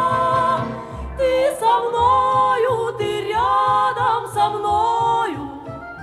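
Song playing: a female voice sings long held notes that glide from pitch to pitch, over a low bass part.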